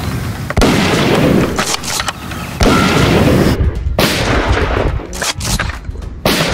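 Gunshot-style booms: a loud first blast about half a second in and a second about two seconds later, each trailing into a long rumble, then a run of shorter sharp cracks near the end. The sounds are far bigger than a spring-powered foam-dart blaster makes, and fit added gun sound effects over the firing of a toy Nerf blaster.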